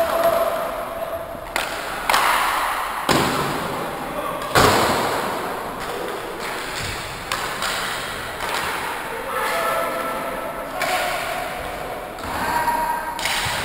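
Inline hockey play: a string of sharp knocks and bangs from sticks, puck and rink boards, echoing around a large hall, the loudest about four and a half seconds in. Players shout a few times between them.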